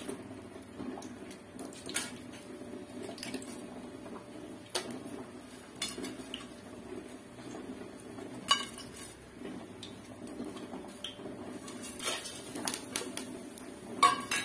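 A steel plate and utensils clinking and knocking against a large aluminium cooking pot as spices are tipped in: scattered metallic clinks, the loudest about eight seconds in and again near the end, over a low steady hum.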